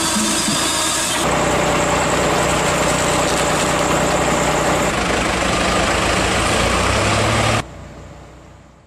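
Firewood processor's engine running steadily, its sound shifting slightly about a second in, then cutting off suddenly near the end and fading away.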